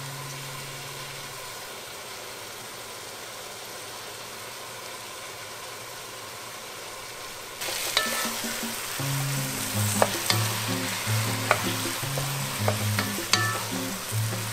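Ground beef and onions sizzling as they fry in a pot, with a wooden spoon clicking and scraping against it as the meat is stirred. The sizzle starts suddenly about halfway through, after a fading music note and a quiet stretch, and runs on under light background music.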